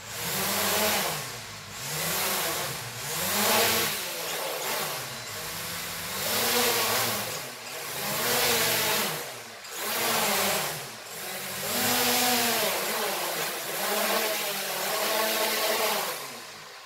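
Small toy quadcopter's motors and propellers whining, starting suddenly, the pitch rising and falling about ten times as the throttle is pushed up and eased off, short of lift-off.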